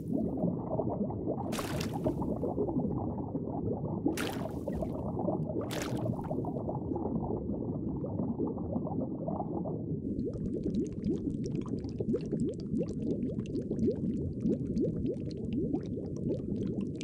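Bubbling, gurgling water, dense and low, with three short hissing rushes in the first six seconds and a faint fine crackle joining about ten seconds in.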